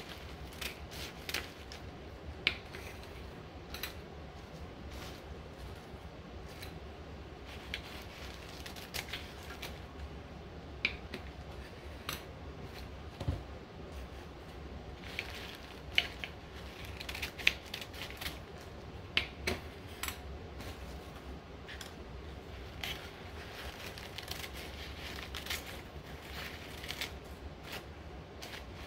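Scissors snipping away the paper liners around the tops of metal tins, in short, sharp, irregular snips with paper crinkling. The snips come in denser runs about halfway through and again near the end.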